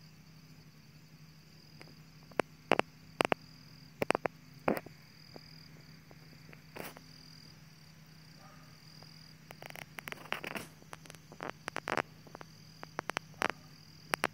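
Insects trilling steadily at a high pitch over a faint low hum, broken by sharp clicks and taps: a few from about two seconds in, then a dense cluster in the second half.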